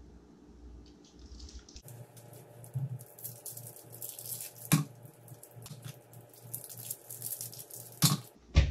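Plastic wrappers crinkling as they are peeled off individual caramels, in quick crackly bursts, with a few sharp knocks, the loudest about halfway through and near the end.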